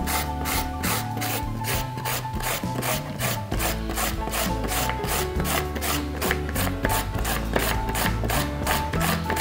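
A carrot being grated on a plastic flat grater with metal blades into shreds on a wooden board: rapid, even rasping strokes, about four a second.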